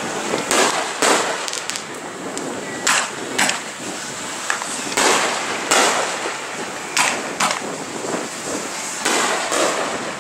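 Aerial fireworks bursting overhead: a run of about a dozen sharp, irregularly spaced bangs over a continuous noisy background.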